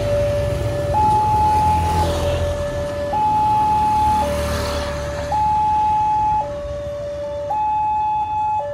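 Electronic two-tone warning siren of a new WANTECH railway level-crossing gate, switching between a lower and a higher tone about once a second: the warning that a train is coming and the barriers are about to close. Road vehicle engines, a truck and motorcycles, rumble past in the first half.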